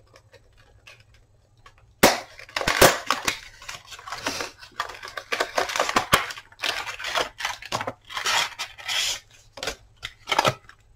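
Product packaging being cut open with scissors and pulled apart, starting about two seconds in: a dense run of crinkling and crackling broken by sharp snips and clicks.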